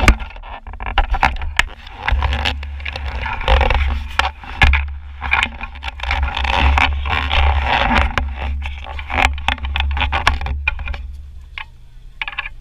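Wind buffeting an action camera's microphone: a loud, gusting low rumble with a rushing hiss, broken by many small clicks and knocks from the camera being handled. The wind noise dies down near the end.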